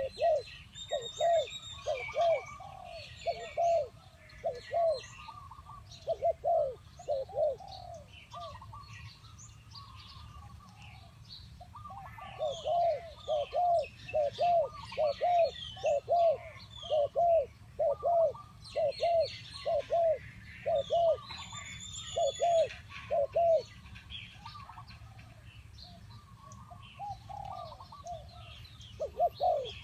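Spotted dove cooing: runs of short, low, arching coo notes in quick succession, broken by pauses of a few seconds. Small birds chirp higher in the background.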